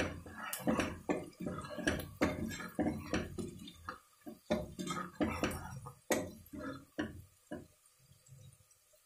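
Metal spoon stirring onions, chillies and spice powders through hot oil in a pressure cooker, scraping the pot in quick strokes about two to three a second. The strokes stop near the end as the masala is mixed in.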